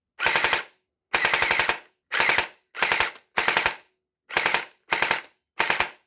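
Hydro Strike Pulsar Pro gel blaster's motor and gearbox firing about eight short bursts, each a rapid rattle of piston strokes, with short gaps between. The motor is being backed off from the bevel gear after being pushed in too far, where it gave a motor and gear whine; backing it off until it sounds smooth sets the pinion-to-bevel-gear engagement right.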